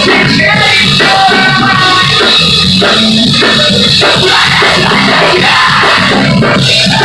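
Live rock band playing loud: electric guitars and drums under a singer's vocals at the microphone.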